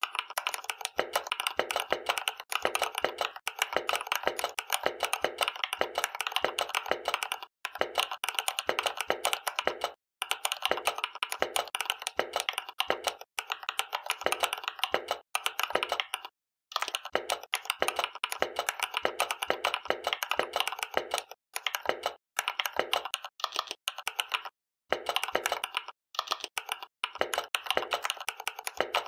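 Computer keyboard typed fast in a timed touch-typing test, a rapid stream of keystrokes at about 80 words per minute, broken by a few brief pauses.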